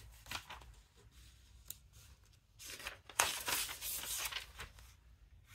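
Sheets of patterned craft paper and white card rustling and sliding against each other as they are lifted and shuffled. There is a short rustle about halfway through, then a longer one lasting a second or two.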